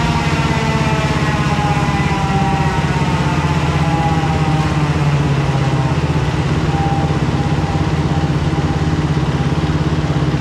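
Yamaha four-stroke single-cylinder dirt bike engine on a chassis dyno, its revs dropping through the first second, then idling steadily.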